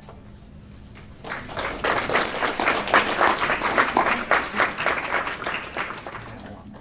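Audience applauding. The clapping starts about a second in, swells, then dies away near the end.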